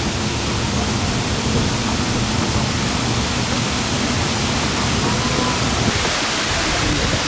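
Steady rushing road and wind noise inside a moving car's cabin, heaviest in the low end, with a faint engine hum underneath.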